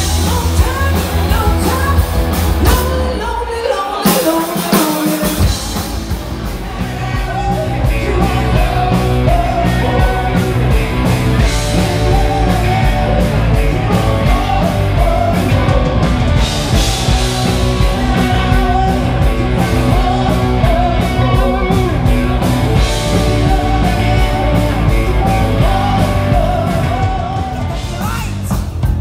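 Live rock band playing: a woman singing lead over electric guitars, bass and a drum kit. The bass and drums drop out briefly about four seconds in, then the full band comes back in.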